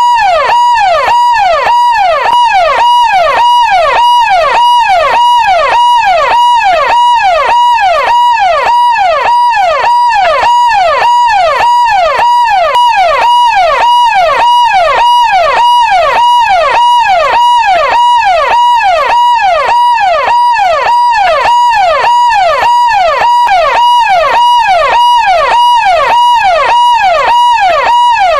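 Electronic police siren sounding continuously in a fast, even up-and-down sweep, a little under two sweeps a second, loud and unchanging throughout.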